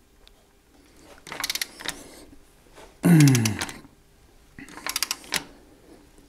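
Ratchet wrench clicking in two quick runs as the nut on a GeoLock foundation wall anchor is tightened. About three seconds in there is a louder, short low groan that falls in pitch.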